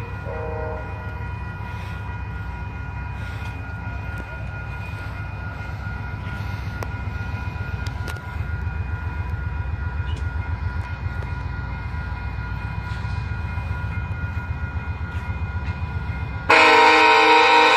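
Approaching diesel passenger locomotive: a steady low engine rumble with a rhythmic pulse, then a loud, sustained horn blast starting near the end. A short horn note also trails off in the first second.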